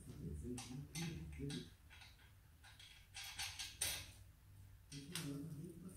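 Quiet clicks and light metallic taps of a scooter's front wheel and its axle parts being handled and fitted into the fork, a few scattered and a quick cluster of them about three to four seconds in.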